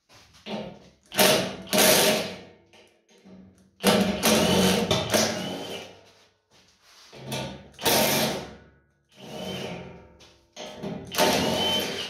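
Power drill driving screws into sheet metal, run in about five short bursts with pauses between, its motor whine rising and falling with each burst.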